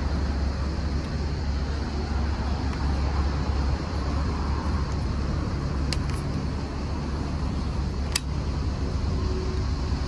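Steady city street noise with a low traffic rumble, broken by two short clicks about six and eight seconds in.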